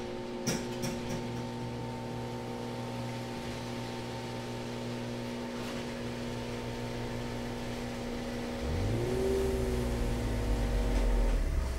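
Garage door opener running with a steady hum, a few clicks as it starts. About nine seconds in, a Mercedes-Benz car's engine comes in, rising in pitch and growing louder as the car rolls up. The hum stops near the end.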